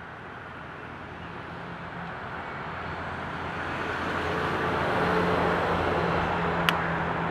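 A passing engine's steady rumble, swelling gradually louder over several seconds and then holding, with one sharp click near the end.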